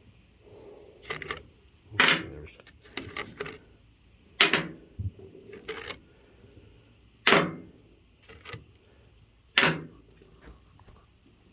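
Loose steel bolts being set down and sorted one by one on a hard surface: about nine sharp metallic clinks spaced a second or so apart, a few of them in quick pairs, each with a brief ring.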